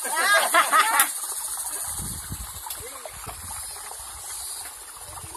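Steady hiss of a rocky mountain stream running, with a short, loud burst of a person's voice in the first second and a low rumble on the microphone after it.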